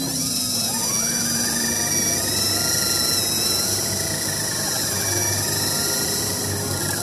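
Small electric motor of a 1/10-scale RC crawler whining under load as the truck climbs out of a sand hole. Its pitch rises about a second in, holds steady, then drops near the end.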